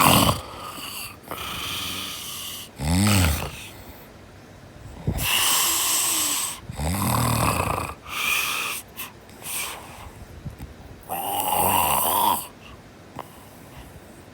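Snoring: a run of rasping, hissy breaths every few seconds, with two short pitched snorts among them, each rising and then falling in pitch.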